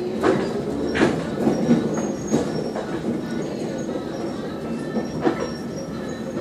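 Moving trolleybus heard from inside: a steady rumble with the electric motor's whine rising at the start, and several sharp rattles and knocks from the body and fittings, the loudest about a second in.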